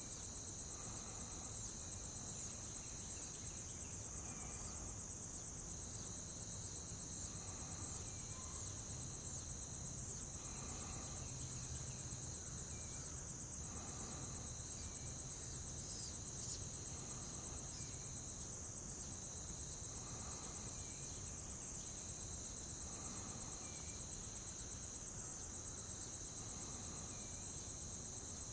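Steady, high-pitched chorus of insects, with a second fainter insect line starting and stopping. Soft short calls repeat underneath about every three seconds.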